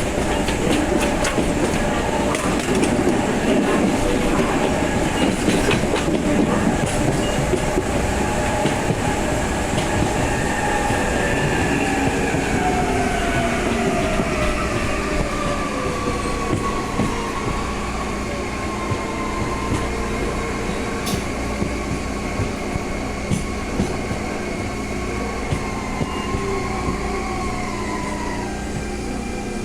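CPTM Série 2000 electric multiple unit's VVVF inverter traction motors whining over the rumble and clatter of wheels on rail. Partway through, the whine falls in pitch, typical of the train slowing. It then holds steady and cuts out shortly before the end.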